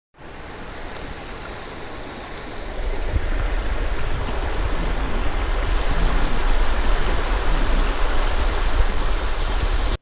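Shallow creek water rushing over rocks, heard close at the water's surface. It grows louder, with a heavier low rumble, about three seconds in, and cuts off suddenly at the end.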